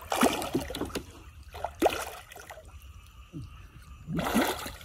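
Shallow water sloshing and splashing in three short bursts as a person wades and gropes by hand for freshwater prawns: one at the start, one about two seconds in, one near the end.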